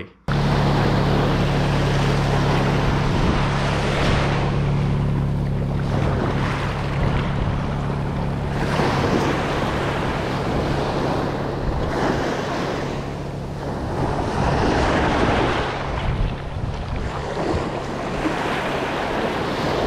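Shallow surf washing around the feet, with small waves breaking every couple of seconds and wind buffeting the microphone. A steady low hum runs underneath and stops near the end.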